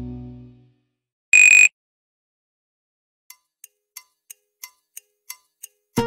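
Nokia C3-01 ringtones played back: the last notes of one tone fade out within the first second, and a single short, loud, high electronic beep follows about a second and a half in. From about three seconds in, soft ticking at about three ticks a second grows louder, leading into the next alert tone.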